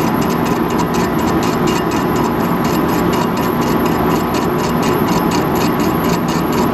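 Metal lathe running steadily while a high-speed steel bit takes a light spring cut across the face of a steel part at reduced feed, with an even ticking about five times a second.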